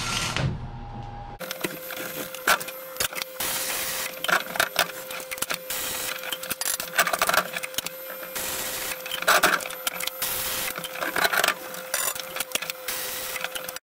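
Flux-core MIG welding arc on stainless steel, run from a Miller XMT 304 with 308L flux-cored wire: a dense crackle and sizzle with irregular sharp pops and a steady thin hum underneath. It cuts off suddenly near the end.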